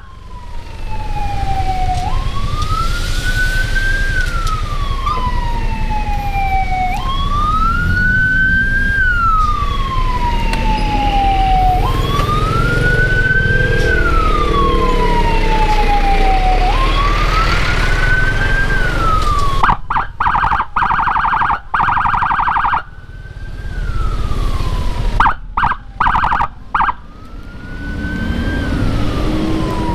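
Motorcycle-mounted electronic escort siren through a horn speaker: a wail that rises quickly and falls slowly about every five seconds, then switches to a fast warbling tone sounded in short on-off bursts before the wail comes back near the end. A low engine and traffic rumble runs underneath.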